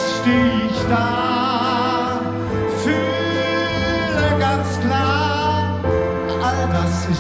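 A concert wind band of clarinets and brass plays a slow ballad. A man sings into a microphone over it, holding long notes with vibrato.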